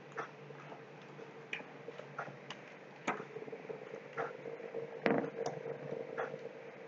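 Irregular clicks of a computer mouse and keyboard, about ten in all, the loudest about two-thirds of the way through, over a faint steady hum.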